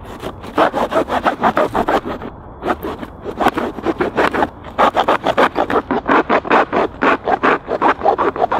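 Hand saw cutting through a rigid cardboard box in quick back-and-forth strokes, about four to five a second, with a couple of brief pauses.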